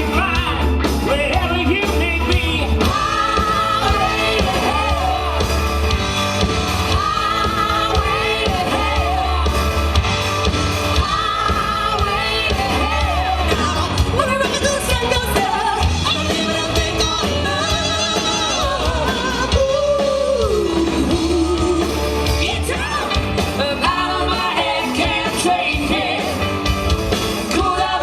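Rock song with a lead singer holding long notes over a steady bass beat.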